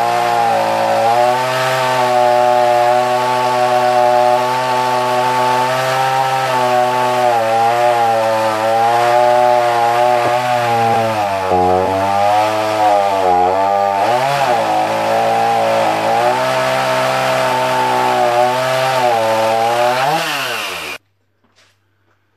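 Adano petrol chainsaw with a 16-inch Oregon bar and chain cutting a tree. Its engine pitch sags under load and recovers several times, and the owner judges that it runs at too low an RPM. The sound rises briefly and then cuts off suddenly near the end.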